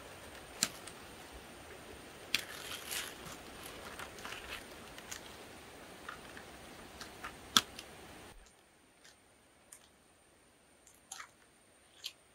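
Handling sounds of plastic sheeting and tape being pinned to a rubber tree's bark: crinkling plastic and a scattering of sharp clicks and taps as pins are pushed in. About eight seconds in the background drops lower, leaving only a few faint ticks.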